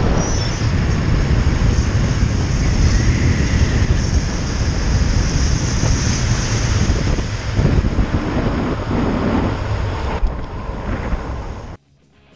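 Wind rushing over the microphone with the rumble of longboard wheels rolling fast on asphalt. It cuts off suddenly near the end.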